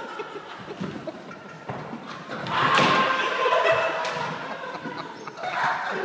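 Skatepark ambience in a large indoor hall: scattered knocks and thuds with echo, and faint voices in the background. The sound is busier and louder for a second or so around the middle.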